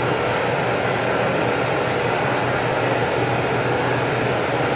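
Steady background noise: an even rushing hiss over a low hum, unchanging throughout.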